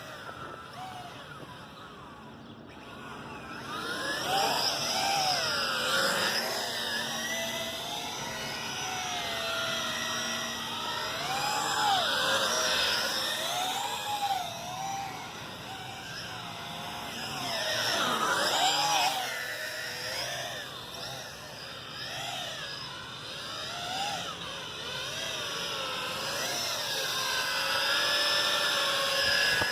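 Electric motors of a remote-control toy whining, several tones rising and falling in pitch together as it speeds up and slows down, over a steady mechanical hum.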